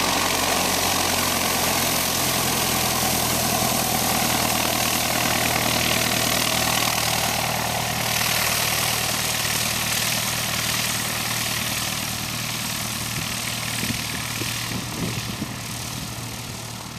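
Light propeller airplane's piston engine running steadily, fading slowly near the end.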